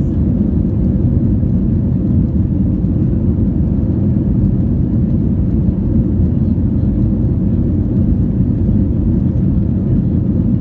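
Airbus A321 heard from inside the passenger cabin during take-off: a steady, loud, low rumble of the jet engines and airflow, with no changes.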